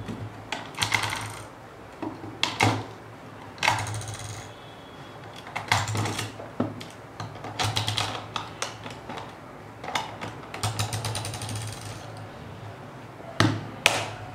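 Plastic clicks and rattles from handling the battery compartment and AA batteries of a Digitek DFL-044 flash, with a few quick runs of clicking and sharper snaps near the end.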